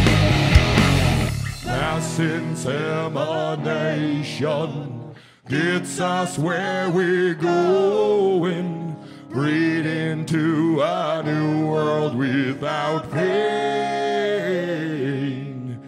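Live rock band: the loud full-band passage breaks off about a second and a half in, leaving a quieter stretch of male singing over guitar with no bass or kick drum. The music drops out briefly about five seconds in, and the full band comes crashing back in right at the end.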